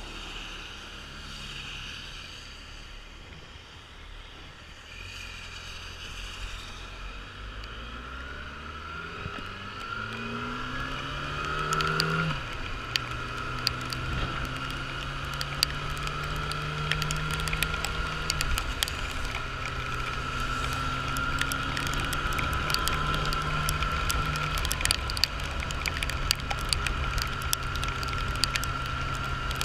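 Motorcycle engine idling quietly, then pulling away with its pitch rising, a gear change about twelve seconds in and another about six seconds later, then cruising steadily. Many sharp ticks of rain hit the camera over wind and wet-road noise.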